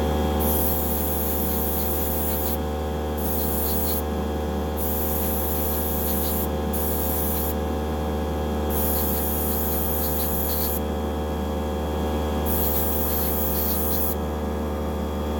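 Airbrush spraying paint in six short, high hissing bursts as the trigger is pressed and released, over a steady low hum.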